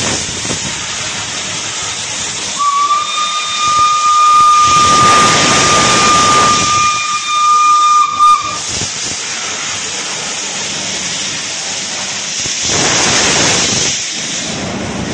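Heritage-style steam locomotive venting steam with a loud hiss, its whistle blowing one long steady note for about six seconds. A second rush of steam hiss comes near the end.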